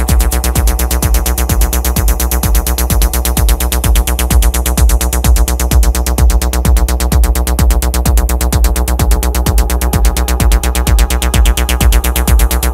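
Acid techno track playing: a steady drum-machine kick with fast, even hi-hats over sustained synth layers.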